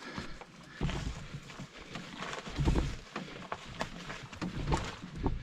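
A person breathing hard with effort, with footfalls and knocks, while climbing a steep portage trail.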